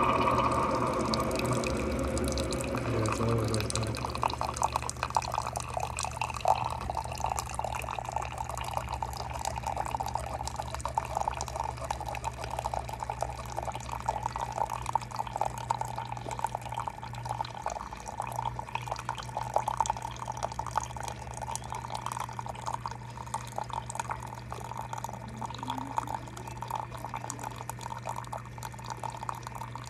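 Single-serve coffee maker pouring a thin stream of coffee into a ceramic mug: a steady patter of liquid over a low, even machine hum. The machine is louder for the first few seconds.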